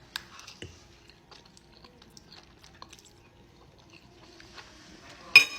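Close-miked chewing and soft wet mouth clicks of someone eating pasta, with one sharp, much louder sound near the end.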